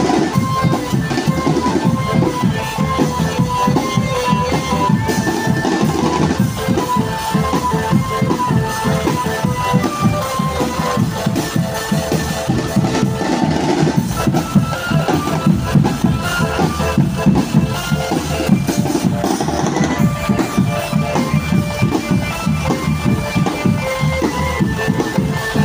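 Indonesian drum band playing: fast, dense drumming on snare and bass drums, with a melody line of held notes running over it.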